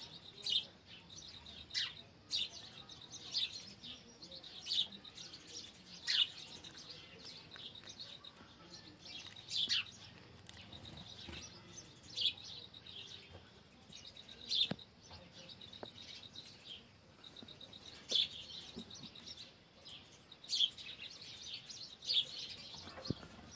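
Small birds chirping: short, sharp high chirps that come irregularly every second or two.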